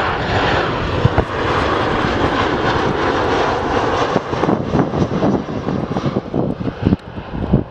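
A Boeing 737-800's two CFM56-7 turbofan engines as the airliner passes low overhead on final approach with its gear down: a loud, steady jet roar. About halfway through, the roar turns uneven and gusty.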